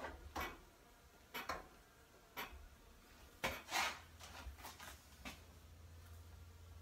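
Scattered light knocks and clicks as beekeeping equipment around a hand-cranked honey extractor and its honey bucket is handled, about half a dozen in all, the loudest a little past halfway. A low steady hum runs underneath.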